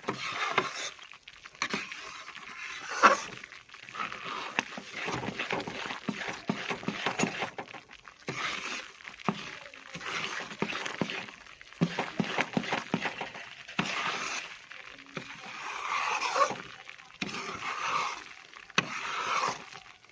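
Spatula scraping and stirring besan as it roasts in ghee in a kadhai, in irregular strokes with scattered sharp clicks against the pan.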